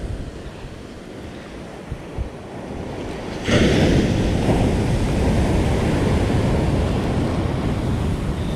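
Surf on a sandy beach: a low wash at first, then about three and a half seconds in a wave breaks loudly and its rush of water carries on, with wind buffeting the microphone.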